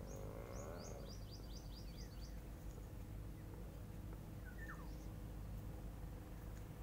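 A bird calling: a quick run of about ten short high chirps starting about half a second in, then a single short falling note near the middle, over a steady low background rumble.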